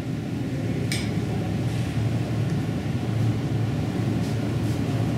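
Steady low machinery hum of a chemical plant room, with one short high-pitched squeak about a second in.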